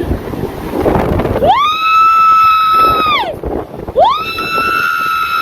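Storm wind noise, then two long, shrill wordless cries from a person, each rising sharply, held about a second and a half and falling away.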